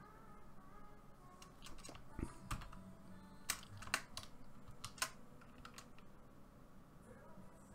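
Faint computer keyboard keystrokes: a handful of separate clicks at irregular intervals.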